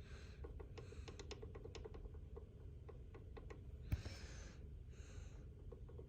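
Faint, irregular light clicks and ticks from handling the Central Electronics 100V VFO and its tuning mechanism, with one sharper click about four seconds in.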